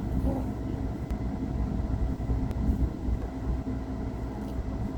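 A motor running steadily: a low rumble with a faint hum above it.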